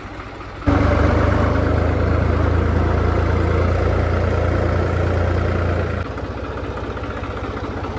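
New Holland 3630 tractor's turbocharged diesel engine running while the tractor drives along, heard from the driver's seat. It jumps louder about a second in, holds steady, then eases back a little about six seconds in.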